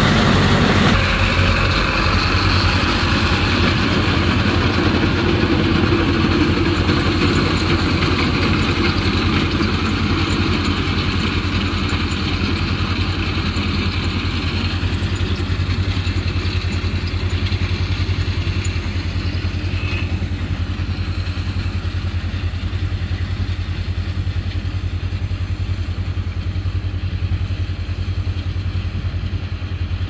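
Tractor engine running steadily under load while pulling a haybine mower-conditioner through standing hay, with the haybine's mechanism adding a steady clatter. It is louder in the first half and somewhat quieter and more distant later.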